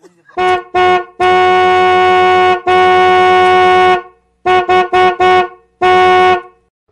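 Car horn honked at one steady pitch in a rhythm: two short beeps, two long blasts, a quick run of four short beeps, then one more short blast near the end.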